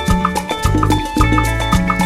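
Background music with a Latin, salsa-like feel: bass, pitched instrument notes and a steady percussion beat.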